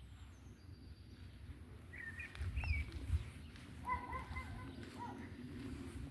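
Birds chirping: a few short chirps and whistled gliding notes starting about two seconds in, over a low rumble.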